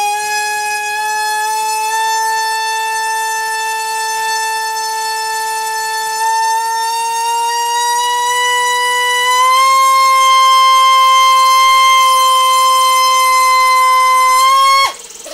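Brushless motor spinning a cut-down 4-inch propeller on a thrust-test stand, driven on 6 cells by a custom ESC: a loud, high-pitched whine whose pitch creeps up as the throttle is raised and steps up about two-thirds of the way through. It cuts off abruptly near the end, when the motor started to shudder at about 18 amps, short of full throttle.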